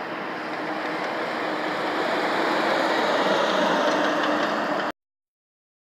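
A truck approaching on the road, its engine and tyre noise growing steadily louder, then cut off suddenly about five seconds in.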